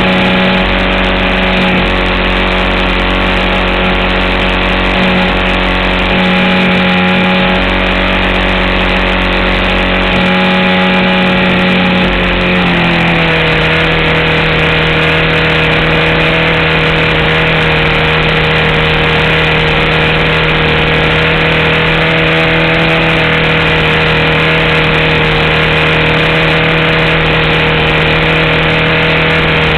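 RC model airplane's engine running steadily in flight, heard from a camera on the plane's landing gear with air rushing past. About twelve seconds in its pitch drops as it is throttled back, then it holds the lower speed.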